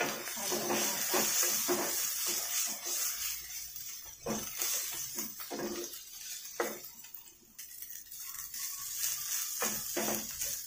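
Wooden spatula stirring and scraping fried rice in a non-stick frying pan, in repeated strokes over a steady high sizzle of frying, with a quieter pause past the middle.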